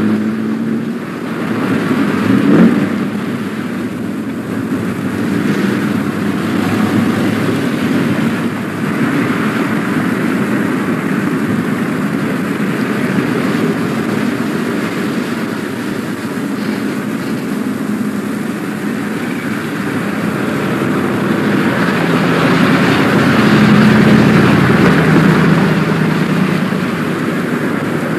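Steady motor-vehicle engine and road rumble, growing a little louder near the end.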